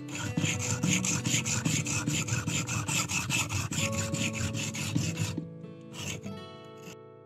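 Homemade knife blade being sharpened on a whetstone: quick back-and-forth scraping strokes, about five or six a second, that stop about five seconds in, with one more short stroke a moment later. Plucked guitar music plays underneath.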